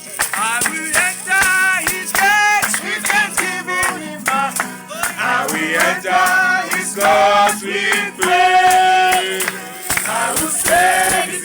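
Gospel praise singing: a voice holding and bending melodic lines over a steady percussion beat of sharp, regular strokes.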